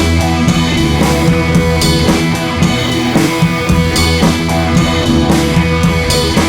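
Background music: a rock-style track with drum kit and guitar, keeping a steady beat.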